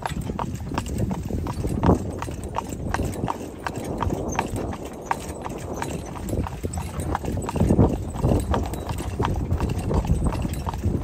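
Horse's hooves clip-clopping on a paved path as it pulls a horse-drawn buggy, in a steady rhythm of about three strikes a second, with a steady low rumble under it.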